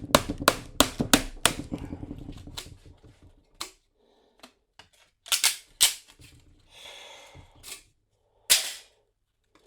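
Sharp metal-on-metal blows from a hand tool on the steel plates of a large transformer core, as a hatchet is worked between the stacked E-plates to separate them. A quick run of strikes, about three a second, comes first, some with a short ring, then slows to scattered single blows.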